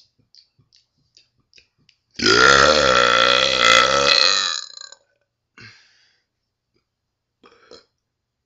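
A few small clicks, then a man's long, loud burp of about two and a half seconds with a wavering pitch, starting about two seconds in.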